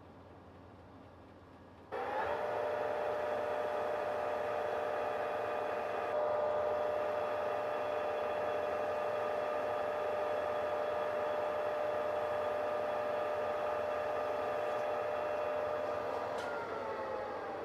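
Metal lathe switched on about two seconds in, running with a steady gear whine while abrasive cloth is held against the spinning metal shaft to polish it down to size; near the end the lathe is switched off and the whine falls in pitch as it coasts down.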